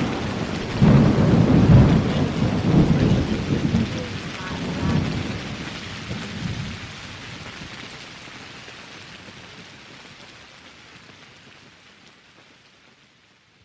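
Thunderstorm: steady rain with thunder rumbling several times in the first seven seconds, then the whole sound slowly fades out to silence by the end.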